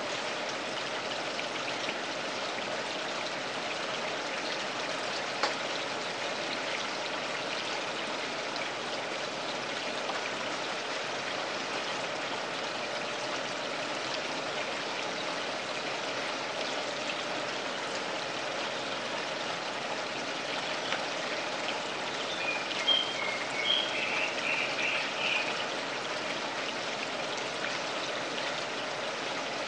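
Running water trickling and splashing steadily in a home garden pond, with a single sharp click about five seconds in and a short run of high chirps about three-quarters of the way through.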